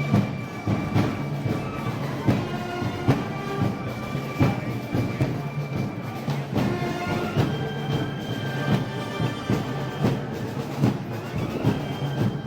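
Festival band music: held notes over repeated drum strokes, in the style of a Moros y Cristianos march or pasodoble.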